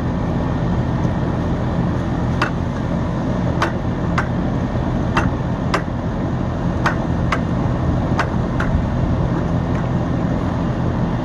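Steady machine hum of an air-conditioning condensing unit running, with light sharp clicks, often in pairs, as a tubing cutter is worked around the copper suction line to cut out the filter drier.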